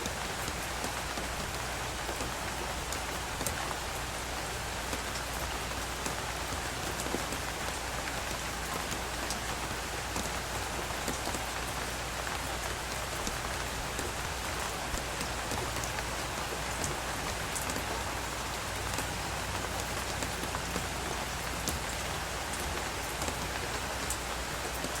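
Steady rain, an even hiss with scattered sharp drop ticks.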